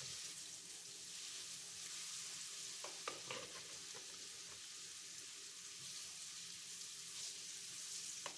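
Food sizzling steadily in a hot frying pan on the stove, with a few light clicks about three seconds in.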